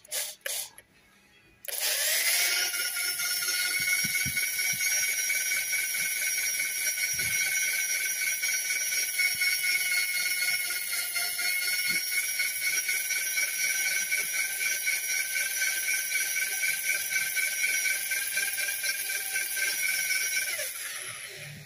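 A high-speed workshop machine or power tool starts suddenly and runs with a steady high-pitched whine over a hiss, then winds down near the end.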